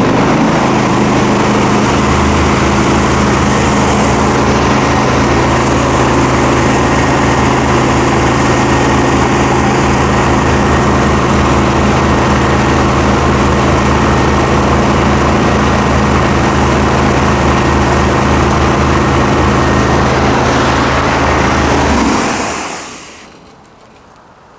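Trailer-mounted hot-water pressure washer running for its burner test: a loud, steady mechanical drone with a motor hum. A lower hum joins about two seconds in, and the machine shuts down about 22 seconds in.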